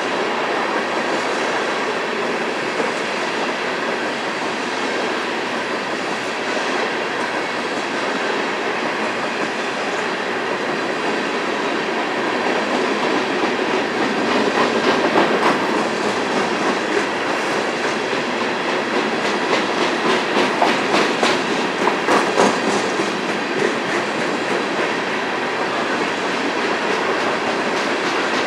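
Empty coal cars of a BNSF coal train rolling past: a steady rumble of steel wheels on rail with clickety-clack over the joints and the rattle and clank of the empty cars, growing busier and louder from about halfway through.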